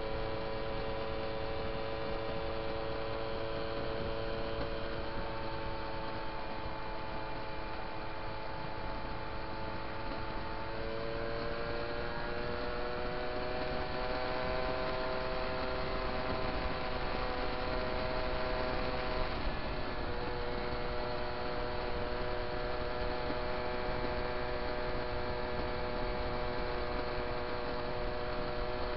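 Small two-stroke moped engine running steadily at cruising speed as a droning whine. Its pitch climbs about eleven seconds in and eases back down a little over halfway through.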